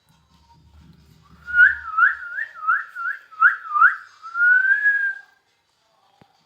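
Whistling: a run of about seven quick rising whistled notes, then one longer, slowly rising whistle.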